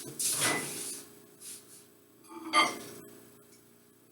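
Kitchen handling sounds: a brief rustle, then a sharp clink of a dish or glass about two and a half seconds in.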